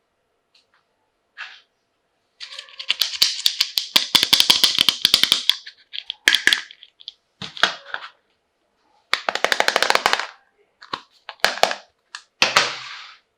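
Toy packaging being opened by hand: bursts of rapid, sharp crackling, one long burst of about three seconds followed by several shorter ones.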